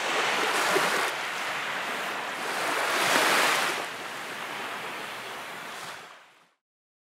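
Small waves lapping and washing up on a sandy beach, swelling twice, about a second in and again about three seconds in, then fading out to silence near the end.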